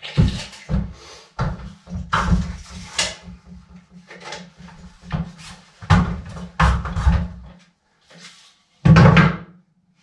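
Wooden boards and tools being handled at a wall from a stepladder: a string of irregular knocks and clatters, then a loud thump about nine seconds in.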